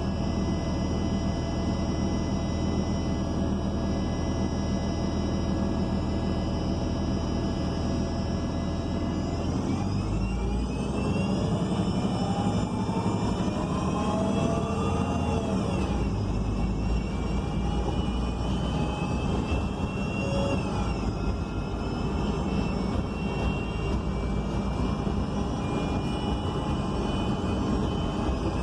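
ElDorado National Axess BRT bus with a Cummins Westport L9N natural-gas engine and Voith D864.6 automatic transmission, heard from inside. It hums steadily at idle for about nine seconds, then pulls away with a whine rising in pitch. The whine drops at an upshift about six seconds later, climbs again and drops at a second shift about four seconds after that.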